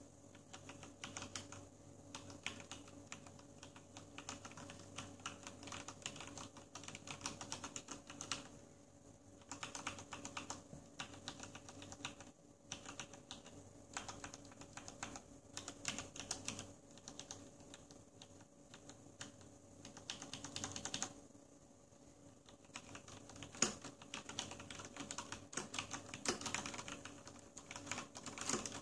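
Typing on a Corsair STRAFE RGB mechanical keyboard with Cherry MX Red linear switches: quick runs of key clicks and clacks, broken by a few short pauses, over a faint steady hum.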